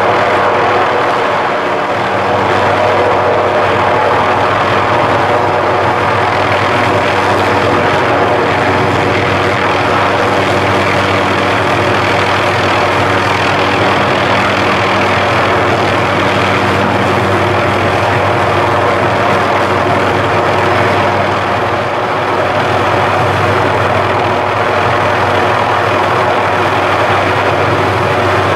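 Helicopter hovering overhead, its rotor and engine making a loud, steady drone with a low hum.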